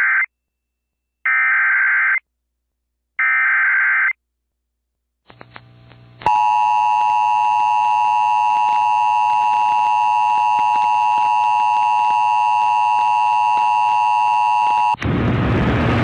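Emergency Alert System tones over FM radio, announcing a Severe Thunderstorm Warning: three one-second bursts of screechy digital SAME header data about a second apart, then the steady two-tone EAS attention signal for about nine seconds. The attention signal cuts off about a second before the end, and a loud hiss follows.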